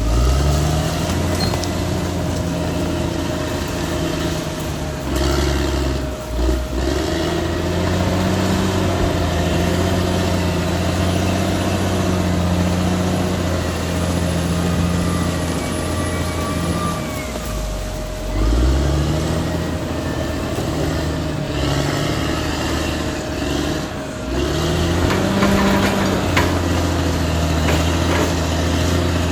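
Caterpillar D6R XL bulldozer's diesel engine running under working load. The engine note sags and climbs back up a few times as the load changes, with a steady higher whine running throughout.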